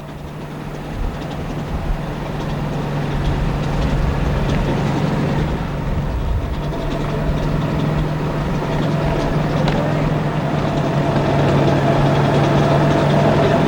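Vehicle engine running with a steady hum, growing louder over the first few seconds.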